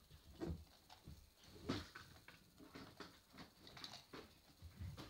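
Near silence: faint room tone with a few soft, scattered knocks and rustles.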